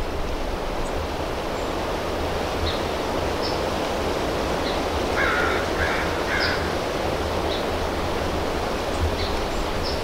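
Wind rushing over the microphone outdoors, a steady noise with a low rumble throughout. About five to six and a half seconds in, a bird calls three times, short and clipped.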